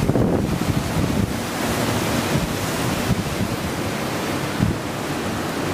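Wind buffeting the microphone on a ship's open deck, over a steady rush of sea water along the hull.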